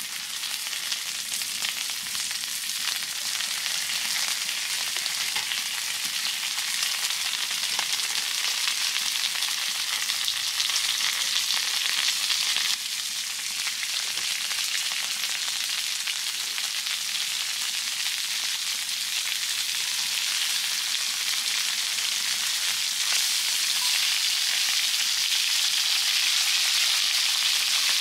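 Lamb entrecote frying over a wood fire, a dense steady sizzle that grows a little louder toward the end.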